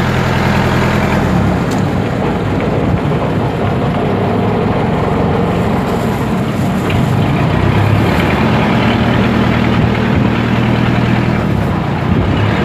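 Engine of a wooden passenger boat running under way: a low drone under the rush of wind and water.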